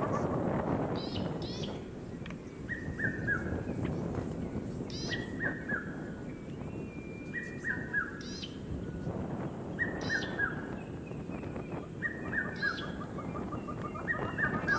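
Wild birds calling around a waterhole: one bird repeats a short falling phrase of three or four notes about every two and a half seconds, while another gives sharp, high downward chirps in between, over steady low background noise.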